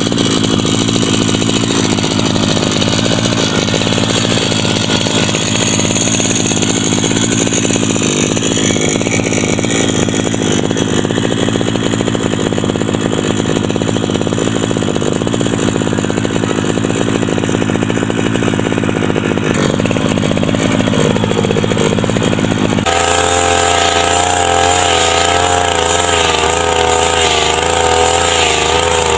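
Small two-stroke engine of a brush cutter (grass trimmer) running continuously. About 23 seconds in the sound changes abruptly to a steadier hum with a wavering pitch.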